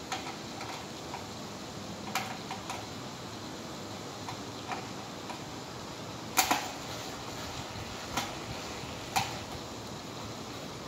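Scattered light clicks and taps from handling a Simplex horn strobe and its wiring, the loudest a quick double click a little past the middle, over a steady hiss.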